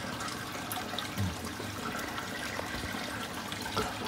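Aquarium filter and air bubbles: a steady sound of running, bubbling water with small ticks of bursting bubbles.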